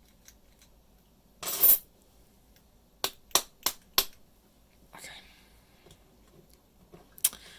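A challenge padlock and lock-picking tools being handled: a short metallic rattle, then four sharp clicks about a third of a second apart and a last click near the end.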